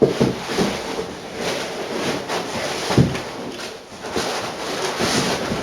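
Clutter being handled and put away: continuous rustling and scraping with scattered knocks, the loudest at the very start and about three seconds in.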